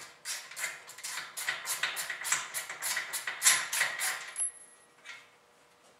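Socket ratchet clicking in quick, even strokes, about four clicks a second, as it backs the old spark plug out of a two-cycle trimmer engine; the clicking stops a little over four seconds in.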